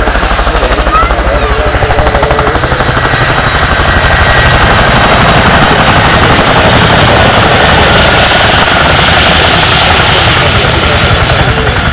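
RAF Boeing Chinook HC Mk2/2A tandem-rotor helicopter flying close by: a rapid, heavy beat from its twin rotors with a steady high whine over it. It grows louder about four seconds in and eases slightly near the end.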